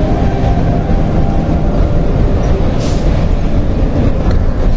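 Steady low rumble of a heavy vehicle's engine and road noise heard from the driver's cab at highway speed, with background music fading out about two seconds in. A brief hiss a little under three seconds in.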